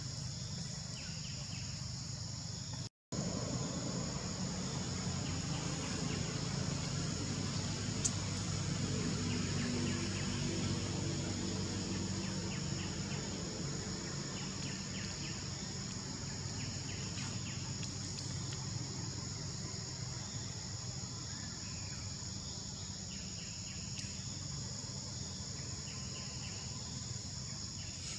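Forest ambience of insects droning steadily at a high pitch, with a low rumble underneath and a few faint chirps. The sound cuts out completely for a moment about three seconds in.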